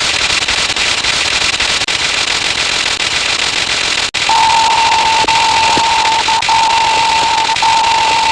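A 'cut' sound effect stacked on itself over and over until it becomes a loud, dense, distorted hiss. Just after four seconds it drops out for an instant, and a steady high beep-like tone then runs on top of the hiss.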